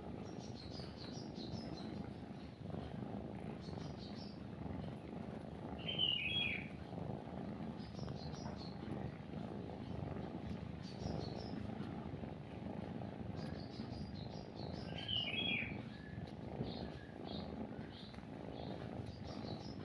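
A kitten purring steadily, a low pulsing rumble, the purr of a contented kitten while nursing. Over it, small birds chirp in short repeated bursts, and a louder falling bird call comes twice, about six seconds in and again about fifteen seconds in.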